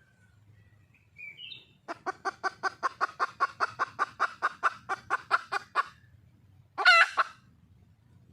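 Red junglefowl hen calling for a male: a fast run of clucks, about five a second for some four seconds, then one loud, short wavering call.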